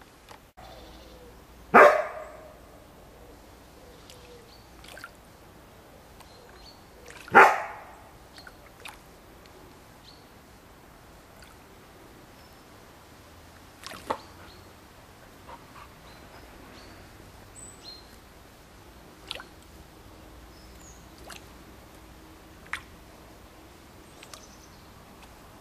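Two loud single dog barks about five and a half seconds apart, followed by smaller scattered splashes and trickling from the pond water.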